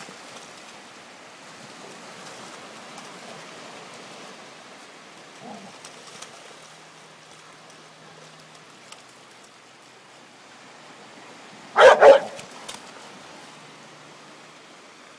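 A dog barks twice in quick succession about twelve seconds in, over a steady wash of small waves on the shore.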